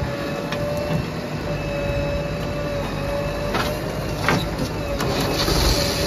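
Diesel engines of a JCB 3DX backhoe loader and a Swaraj tractor running together, with a steady whine and a few sharp knocks in the second half.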